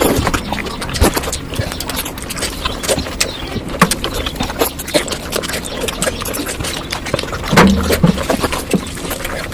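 Mukbang eating sounds of mutton fat curry played back sped up: a dense, rapid run of chewing and lip-smacking clicks, with a brief louder low sound just before eight seconds in.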